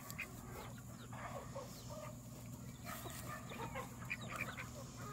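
Chickens clucking softly in short, scattered calls.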